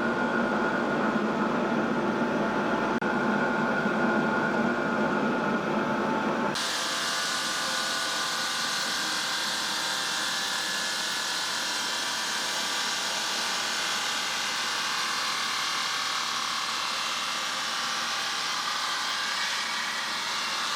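Stone-cutting saw machinery running steadily. About six seconds in, the sound changes abruptly to a hissier, higher-pitched noise, with less low hum, that then holds steady.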